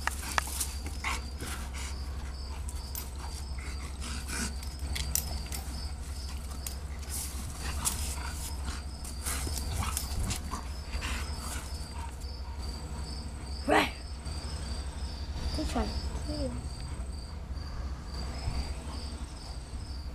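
Two dogs, a Cane Corso and a bulldog, play-wrestling: scuffling and light knocks throughout, with one short loud bark about two-thirds of the way through and a brief whine soon after. Insects chirp steadily in the background.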